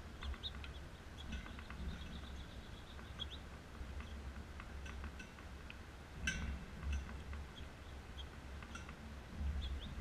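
Small songbirds chirping in the background, short high notes scattered through, over a steady low rumble and a few light clicks.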